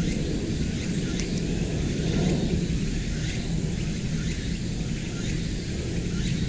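Outdoor ambience: a steady low rumble under high-pitched insect chirps repeating about once a second, with a few scattered bird calls.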